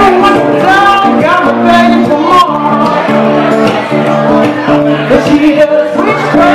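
Live acoustic guitar accompanying sung vocals in a continuous song, played loud and without a break.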